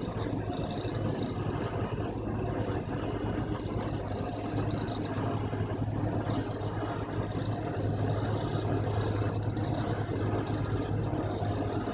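Plasser 09-16 DYNA-C.A.T. track tamping machine at work: a steady, heavy mechanical drone from its power unit and hydraulics, with a strong low hum throughout.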